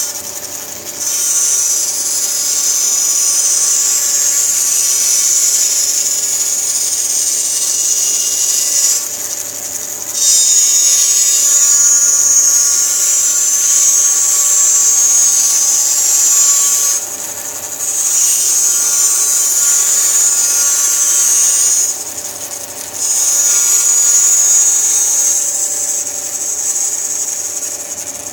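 A 14-inch Jet bandsaw resawing an oak board. The motor runs steadily under a loud, high hiss of the blade cutting, and the hiss drops away briefly several times before picking up again.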